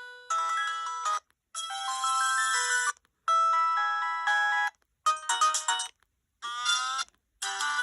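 Polyphonic ringtone melody playing from an LG VX6100 flip phone's small speaker. It comes in about six short bright electronic phrases of a second or so each, with brief pauses between them.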